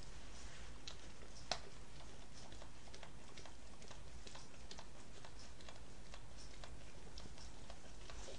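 Entlebucher Mountain Dog mother licking her puppies: irregular small wet clicks and smacks, with one sharper click about a second and a half in, over a low steady hum.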